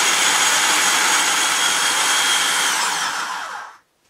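Electric food processor running, its blade chopping onions, with a steady high whine from the motor. About three seconds in it is switched off, and the whine drops in pitch and fades as the blade spins down.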